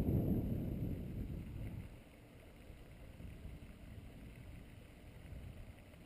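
Wind buffeting the microphone as a low, uneven rumble that dies down after about two seconds to a faint steady rush.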